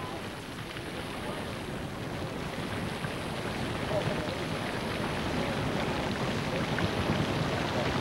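A geyser erupting: a steady rushing hiss of boiling water and steam jetting from the vent, growing gradually louder.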